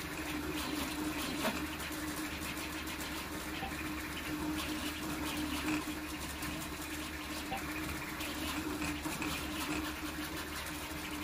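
Large toolchanger 3D printer printing a Benchy at high speed: a steady whirring of the stepper-driven print head and cooling fans, with a constant low hum underneath.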